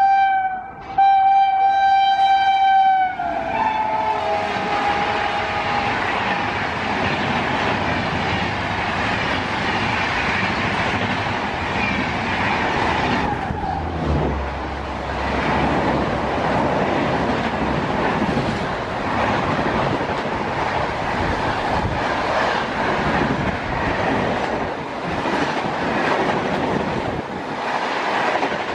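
Horn of an Indian Railways WAP-7 electric locomotive sounding loudly, briefly broken and then dropping in pitch as it fades into the rushing noise of the passing train. About halfway through, a second train's LHB coaches rush past close by with a rhythmic clatter of wheels over rail joints.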